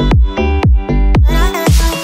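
Electronic dance music with a fast, steady kick-drum beat and deep bass under pitched synth lines.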